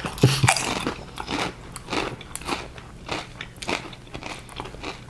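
Potato chips being bitten and chewed: a run of sharp, dry, irregular crunches, a few every second.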